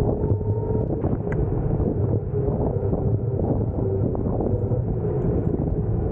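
Wind buffeting the microphone over the low rumble of an electric scooter's tyres rolling on asphalt. A faint steady whine and scattered clicks and knocks run through it.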